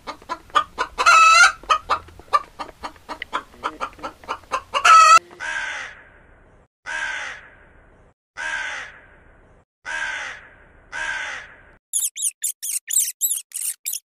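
Chickens clucking rapidly, with two louder squawks, then a rook cawing five times about a second and a half apart, then a rat's rapid high-pitched squeaks near the end.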